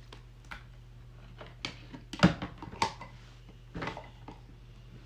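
Plastic slime containers being handled and set down: a few sharp knocks and clatters, the loudest a little after two seconds in.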